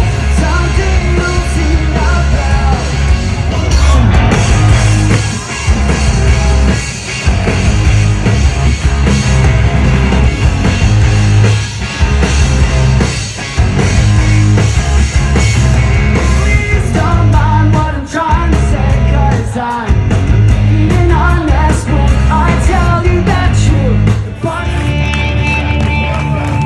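Loud live rock band playing, with drums, bass and sung and yelled vocals. Near the end the drums and bass drop out, leaving one steady held note.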